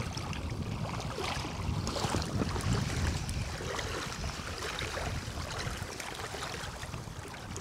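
Wind buffeting the microphone in an uneven low rumble, with small waves lapping at the shore.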